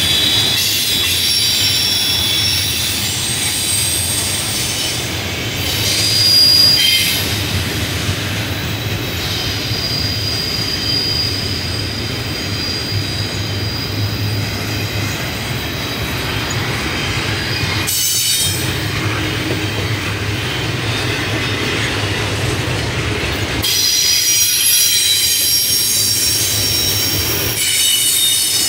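CSX double-stack container train rolling past, its steel wheels squealing on the rail in several high-pitched tones over a steady low rumble. The squeal eases through the middle and grows strong again near the end.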